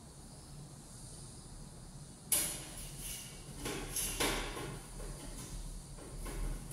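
Metal window frame and grille being pushed and handled by hand. There is a sharp knock with a short ring about two seconds in, then a string of smaller knocks and rattles.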